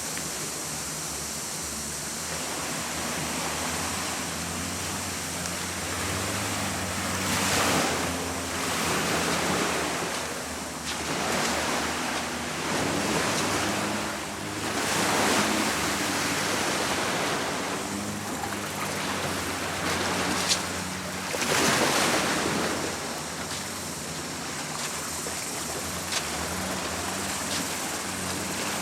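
Sea waves washing in at the shore, surging and fading every few seconds.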